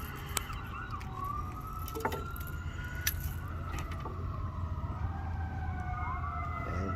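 Distant sirens wailing, several slow rising and falling tones overlapping, over a steady low rumble.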